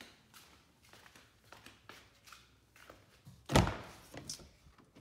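Footsteps on a concrete garage floor, then about three and a half seconds in a single loud thunk as the Jeep Wrangler's door latch is released and the door is pulled open, followed by a few light clicks.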